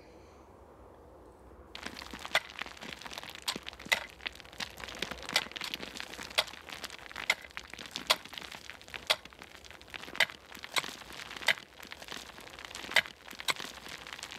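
A long-handled hand tool striking rock, with loose stones crunching and rattling: women picking through a mine's rock heap for tin ore. The sharp cracks start about two seconds in and come roughly once a second.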